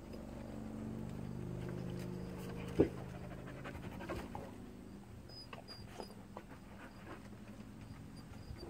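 Dogs panting, with light clicks and one sharp knock a little under three seconds in; a low steady hum sounds under the first half.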